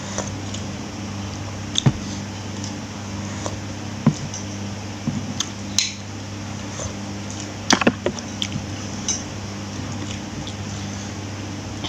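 Cutlery clinking and scraping against a plate while eating: several separate sharp clinks, a pair of them close together near the middle, over a steady low hum.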